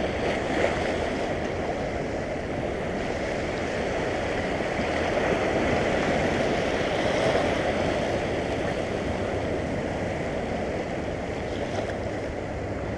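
Sea waves surging and washing over the rocks of a rocky shore, a steady rushing that swells a little around the middle.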